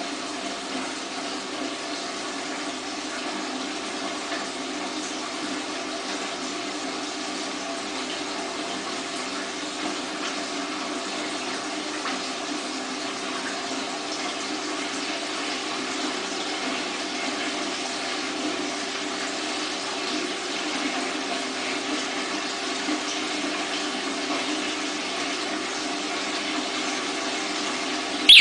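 Water gushing steadily from a hose into a glass tank of water, over the steady hum of a small water pump.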